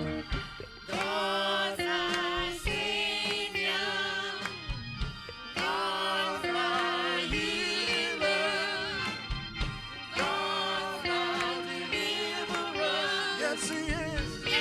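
Gospel music: sung phrases with a wavering, vibrato-laden voice over held instrumental chords.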